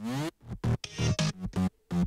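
Electronic dance-music one-shot synth riffs from a Maschine sample pack, triggered one after another. It opens with a quick rising sweep, followed by a run of short stabs with brief gaps between them.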